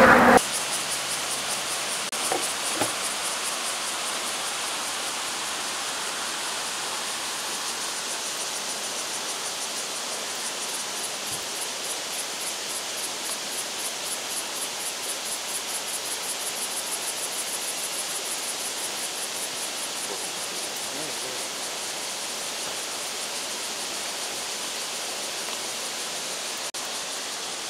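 River water rushing over the boulders of a rocky gorge makes a steady hiss. Through the middle a fast, evenly pulsing high buzz of insects sits over it.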